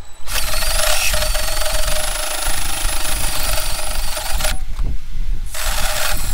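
DeWalt cordless drill turning a hole saw through a welder's sheet-metal cabinet panel at part speed: a whining motor with the saw teeth grinding and chattering on the metal. It starts just after the beginning, stops for about a second near the end, then starts again.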